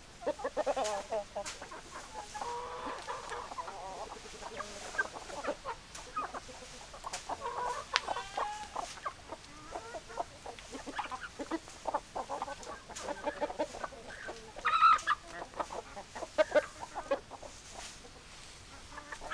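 Chickens clucking: a flock of hens giving many short, repeated calls, with a louder, higher call about 15 seconds in.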